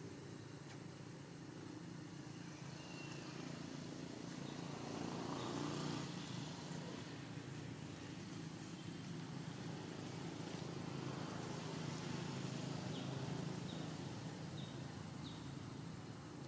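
Low rumble of passing motor traffic, swelling about five seconds in and again around twelve seconds, over a steady thin high whine. A few faint short chirps come near the end.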